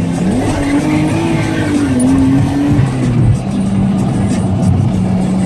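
Nissan Skyline R33's turbocharged straight-six engine under way: the revs climb sharply about a quarter second in and hold high, then fall to a lower steady note about three seconds in.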